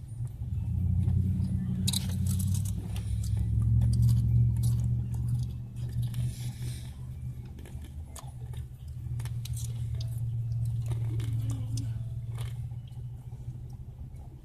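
Nerds Rope candy being bitten and chewed, with small crunches and crackles, over the low rumble of a car.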